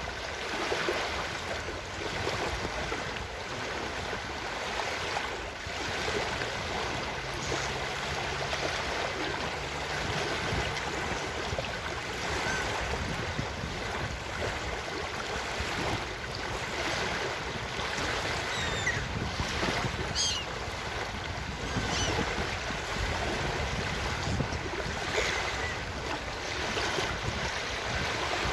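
Ocean surf washing steadily onto a beach, with a few faint, brief high calls of gulls scattered through.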